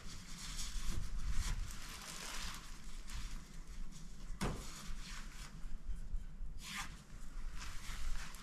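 Zips of a Fjallraven Abisko Friluft 2 tent being drawn open in short rasps, with nylon fabric rustling as the side door is opened and pulled back. A sharp click comes about four and a half seconds in.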